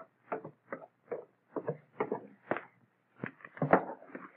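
A string of soft, irregular knocks and clicks, several a second, over a faint steady hum.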